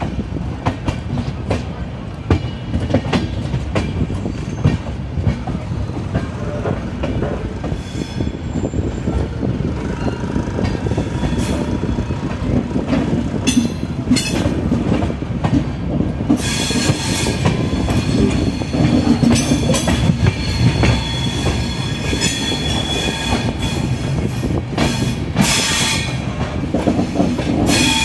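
Passenger train running along the track, heard from on board: a steady rumble of wheels on rails with clickety-clack over the joints. From the middle onward, stretches of high-pitched wheel squeal and clatter come and go.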